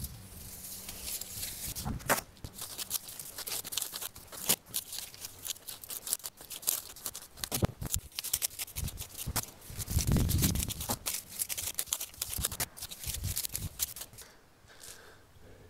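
Dry, brown daylily stems rustling and crackling as they are pulled out by hand and gathered into a bundle, with many irregular snaps and crackles and a louder, duller stretch about two-thirds of the way through.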